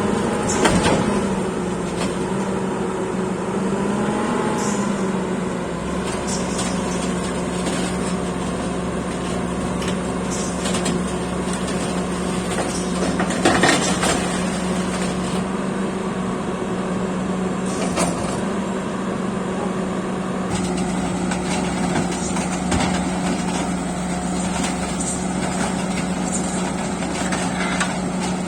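Heavy diesel engine running steadily at a constant pitch, with a few sharp metallic knocks, the loudest about halfway through.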